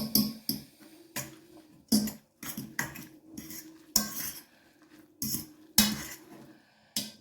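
A metal utensil knocking and clinking against a pot, a dozen or so sharp knocks at an uneven pace.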